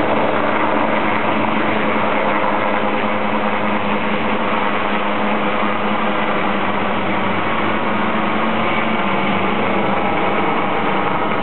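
Helicopter taking off and climbing away, its rotor and engine noise a loud steady drone with a steady hum that fades about nine seconds in.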